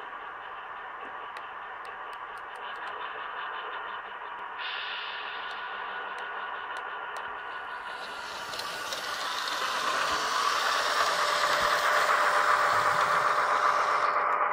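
Märklin H0 model diesel locomotive running along the track, its motor and wheels making a steady mechanical noise that grows louder over the last several seconds as it comes close.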